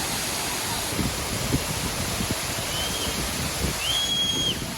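Steady rushing roar of a waterfall, with scattered low knocks. Two short, high, flat whistled notes come near the end, the second longer.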